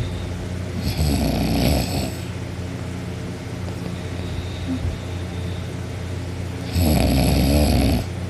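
A person snoring in her sleep with her mouth open: two snores, each about a second long, roughly six seconds apart.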